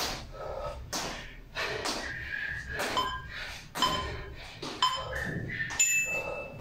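Feet landing on a tile floor with each hop, about one thud a second. Interval-timer countdown beeps sound three, four and five seconds in, then a longer, higher tone near the end marks the end of the work interval.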